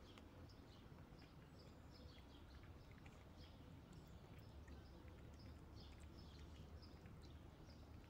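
Near silence: faint outdoor ambience of small birds chirping over and over, short quick chirps, over a low steady rumble.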